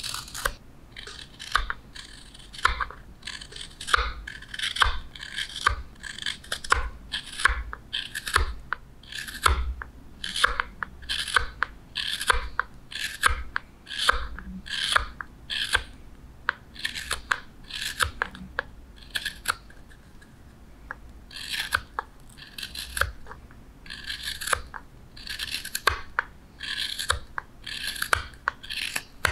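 Hook knife scooping shavings out of a wooden spoon bowl: a run of short, crisp scraping cuts, roughly two a second, with a brief pause about two-thirds of the way through.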